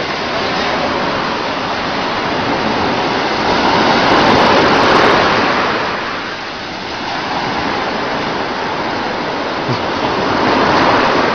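Sea surf washing and breaking in the shallows, a continuous rushing noise that swells loudest about four to five seconds in and again near the end.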